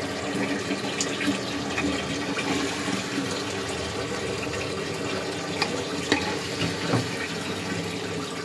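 A metal ladle stirring curry in an aluminium pressure cooker, with a few sharp clicks as it knocks the pot. Under it a steady rushing kitchen noise with a low hum runs throughout.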